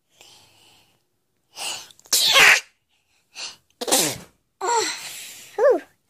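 A woman's forced sneezes, brought on by tickling inside her nostril: quick in-breaths and three sneezes, the loudest about two seconds in and the last one voiced and wavering near the end.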